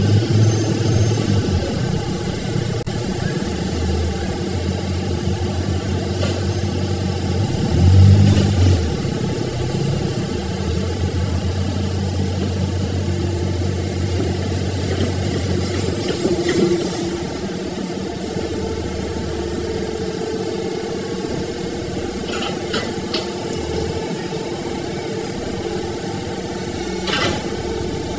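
Diesel engine of heavy machinery running steadily, swelling briefly about 8 seconds in and easing off at about 16 seconds.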